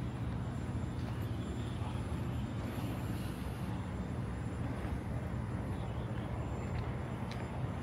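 Steady low rumble and hum of motor vehicle noise, without pauses or sudden events.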